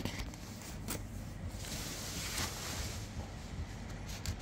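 A knife cutting and scraping the plastic shrink wrap on a smartphone box, a hissing scrape with a few light clicks and taps of the blade and box.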